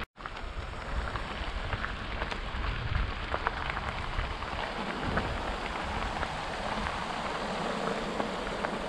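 Mountain bike rolling over a gravel track: a steady crackle of tyres on loose stones with small rattling clicks over a low, shifting rumble.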